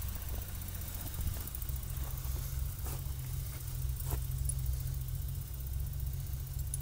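Car engine idling steadily with a low, even hum, and two faint clicks about three and four seconds in.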